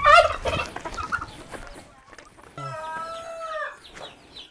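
Farmyard poultry calling: a loud wavering call at the very start, then a held call about two and a half seconds in that drops in pitch at its end.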